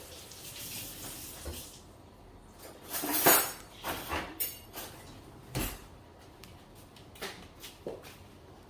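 Kitchen utensils and dishes clinking and knocking as things are handled at the counter: a short soft hiss, then a loud clatter about three seconds in, followed by several lighter knocks.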